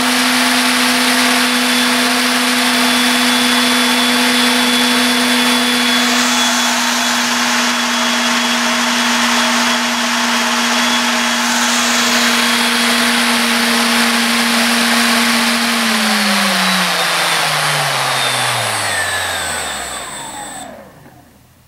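Skywalker AX2814 brushless outrunner motor driving a 6x9 plastic propeller, running at a steady high whine at about three-quarter throttle. About 16 seconds in it winds down, falling steadily in pitch over a few seconds until it stops near the end.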